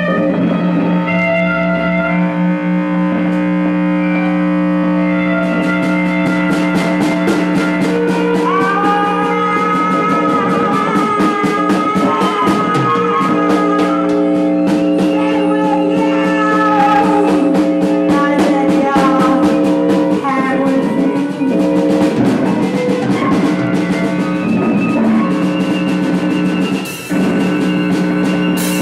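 Loud live rock-noise band: electric bass and electric guitar holding droning, sustained notes through amplifiers. About five seconds in they are joined by a fast, even run of percussive hits.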